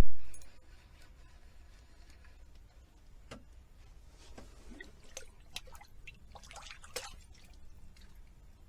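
A sharp knock, then water dripping and trickling in scattered small drops and splashes in an ice-fishing hole.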